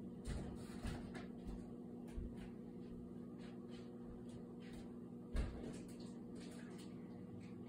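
Faint household room sound: a steady low hum with scattered soft knocks and clatter, and a louder knock about five seconds in.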